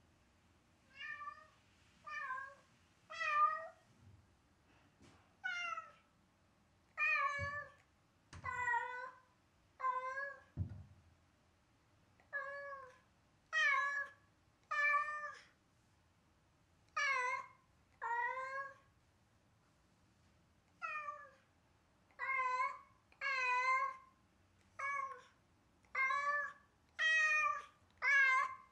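A domestic cat meowing over and over, about twenty short, drawn-out calls one to two seconds apart, with a few dull thumps partway through. This is the plaintive crying of a cat left alone, which the owners fear is a sign of separation anxiety.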